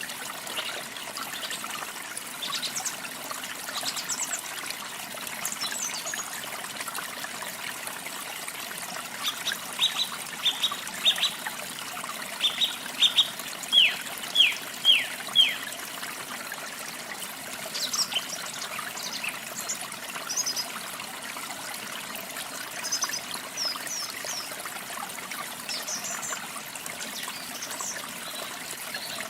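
Small songbirds chirping and whistling over a steady trickle of running water. In the middle comes a run of about ten quick falling whistled notes, with scattered higher chirps later on.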